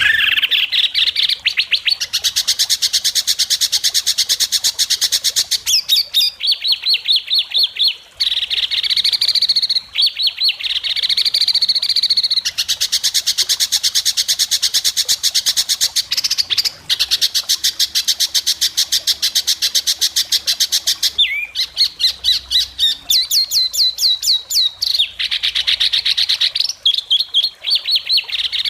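White-rumped shama (murai batu) singing loud, sharp, very fast rattling trills in long bouts with short breaks between them.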